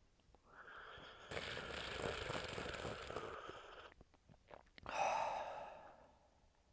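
A man sipping and slurping hot chaga tea from a mug for a few seconds, then letting out a breathy exhale, like a sigh, about five seconds in.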